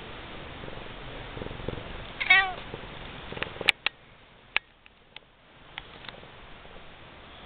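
Domestic cat giving one short meow about two seconds in, followed by a few sharp clicks.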